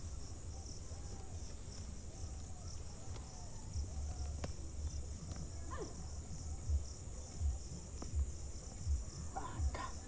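Crickets trill steadily in the grass, with a low rumble underneath and a few faint rustles and snaps as leafy vine stems are pulled up by hand.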